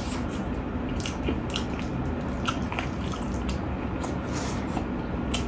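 Close-up eating sounds of rice and fried mutton ribs being eaten by hand: wet squishing as the hand mixes the rice, and chewing and lip smacks, heard as a scatter of small sticky clicks.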